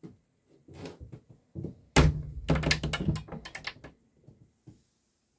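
Knocks and clicks inside a small yacht cabin: one heavy thunk about two seconds in, then a quick run of sharper knocks and clicks for under two seconds, and a few faint taps after.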